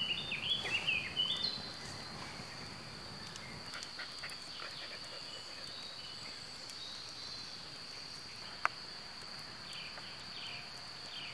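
A steady high-pitched insect trill, a cricket or bush-cricket, with short bird chirps in the first second or so and again near the end, and a single sharp click about eight and a half seconds in.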